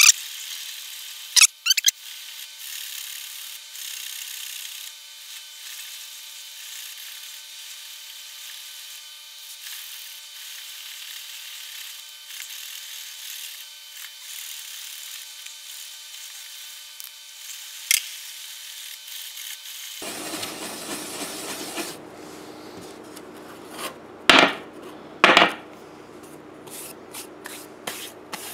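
Steel wool scrubbing a copper-clad circuit board, a steady scratchy hiss of the pad rubbing off leftover toner to bare the etched copper traces. Near the end, handling noise and two sharp knocks about a second apart.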